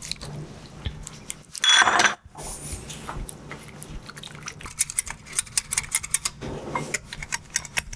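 Wire whisk beating a thin almond butter sauce in a glass bowl, its wires clicking rapidly against the glass, the clicks thickest from about four seconds in. A short louder burst comes about two seconds in.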